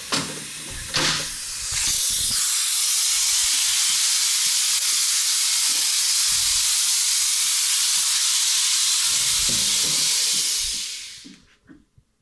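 Air-operated motorcycle lift being let down: a couple of knocks as the release is worked, then a steady loud hiss of air escaping for about nine seconds, tapering off near the end as the table reaches the floor.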